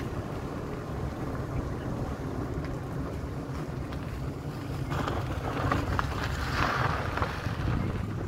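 Wind buffeting the microphone as a steady low rumble, with a brief rise in hiss about five to seven seconds in.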